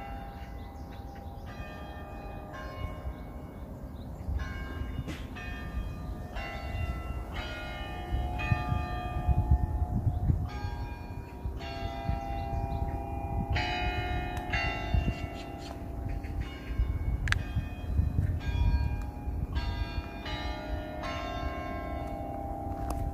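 Church bell chimes playing a slow tune of separate struck notes at changing pitches, one about every second, each ringing on and overlapping the next.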